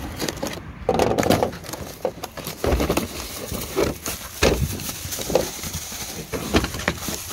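A cardboard parts box being slit open with a knife and its flaps pulled back, with irregular knocks and scrapes of cardboard against a ribbed truck-bed liner.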